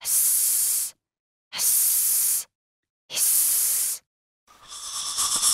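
Three snake-like hisses, each just under a second long with short gaps between them. A longer, rougher hissing noise starts near the end.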